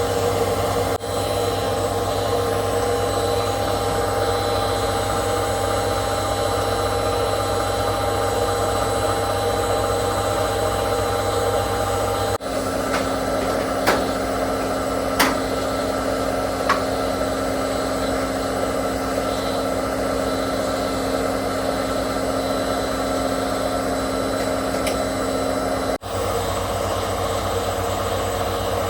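Hotpoint 18680 Super Electronic washing machine on its spin, its brushed motor and drum running steadily with a mechanical hum and whine; the motor has new brushes fitted and runs smoothly. The hum changes pitch abruptly about twelve seconds in, and three short sharp ticks come a little after.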